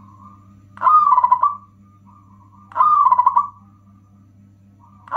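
Zebra dove (perkutut) cooing: two short phrases of quick, stuttering coo notes about two seconds apart, with a third phrase starting at the very end.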